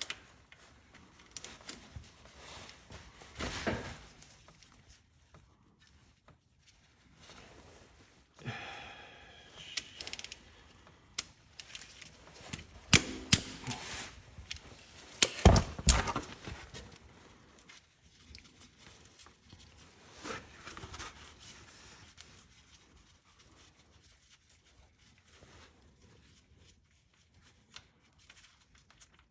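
Hand tools working on a car's front differential drain plug: scattered metallic clicks and knocks, with a short rattling stretch about a third of the way in and the loudest clanks near the middle.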